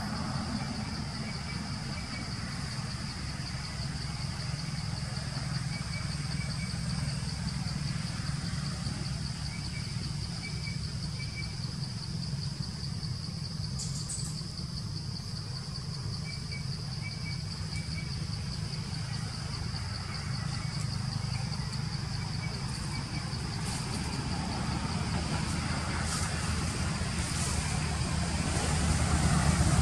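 Steady outdoor background noise: a low rumble, a continuous high-pitched whine, and faint short chirps now and then. It grows a little louder near the end.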